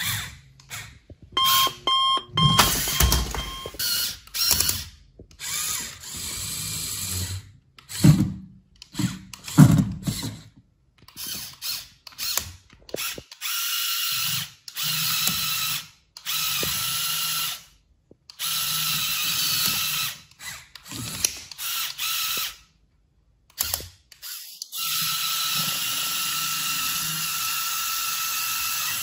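Small Lego Technic electric motors whining through plastic gears as the climbing car drives its wheels, in short stretches that start and stop abruptly, with a few loud knocks about eight to ten seconds in.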